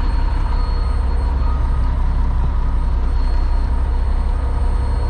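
Concrete mixer truck's diesel engine running: a steady low rumble with a few faint steady high tones over it.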